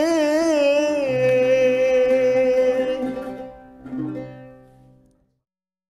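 A male singer holds the last note of an Arabic love song over plucked-string accompaniment. The note wavers in pitch at first, then steadies. A final pluck comes about four seconds in, and the music fades out soon after.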